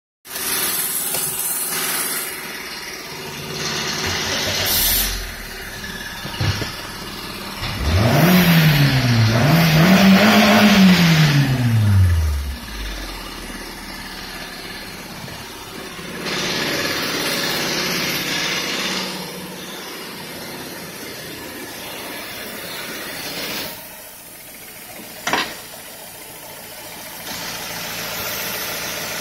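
Nissan Almera N16's 1.8-litre QG18 four-cylinder petrol engine running: it idles, is revved up twice in quick succession about a third of the way in with the pitch rising and falling, and settles back to idle at about 1000 rpm. A sharp click is heard near the end.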